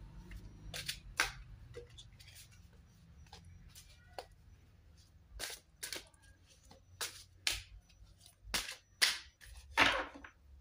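A dozen or so faint, sharp clicks and taps at irregular intervals, with a slightly longer, louder rustle near the end.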